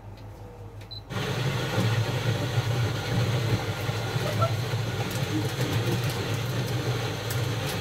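Automatic coffee machine starting up about a second in and running steadily, a loud motor hum with hiss, as it makes a coffee drink.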